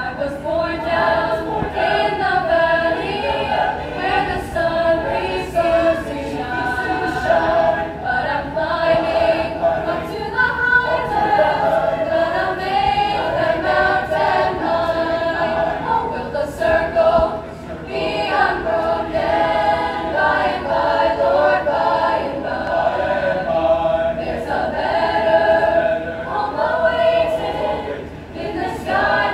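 High school concert choir singing in parts, holding sustained chords, with short breaks between phrases.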